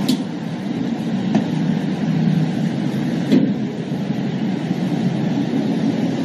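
Steady low rumble of an idling vehicle engine, with three short clicks.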